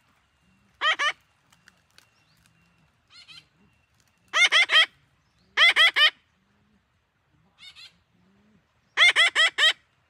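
Green parakeets calling: quick runs of two to five short, harsh, rising squawks, repeated every second or two, with the loudest runs about a second in, around the middle and near the end.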